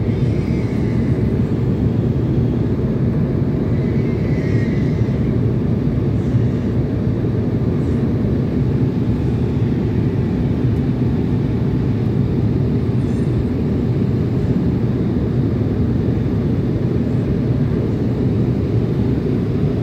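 Steady low rumble inside a twin-jet airliner's cabin, the turbofan engines and airflow heard from a window seat beside the wing, as the aircraft comes in on its approach.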